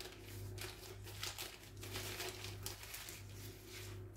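Baking paper crinkling in irregular rustles as a roll of ready-made pizza dough is handled and unrolled, over a steady low hum.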